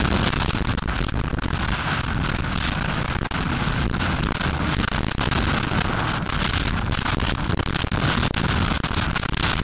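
Suzuki RM250 two-stroke motocross engine running hard, heard from onboard: a dense, distorted engine noise buried in wind buffeting on the microphone, with constant crackling clicks.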